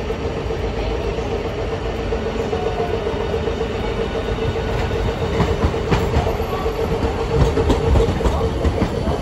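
Hiroshima Electric Railway 5200-series Green Mover APEX low-floor tram rolling slowly into the stop. Its wheels click over rail joints and points from about halfway through, getting louder as the car draws alongside, over a steady hum.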